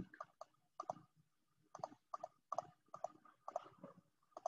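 About a dozen faint, light clicks, several of them quick doubles, coming irregularly two or three a second as a dotted line is tapped out dot by dot on a digital whiteboard.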